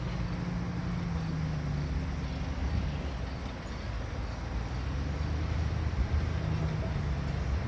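Steady low rumble with a faint low hum underneath, unbroken throughout.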